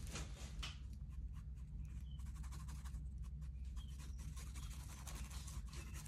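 Paint being worked onto a canvas: quick, irregular dry scratching and rubbing strokes of a painting tool on the surface, over a steady low hum.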